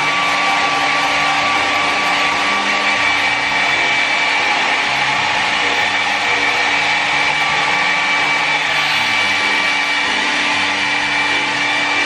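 A Kris 600-watt travel hair dryer running steadily, a rush of blown air with a constant high motor whine.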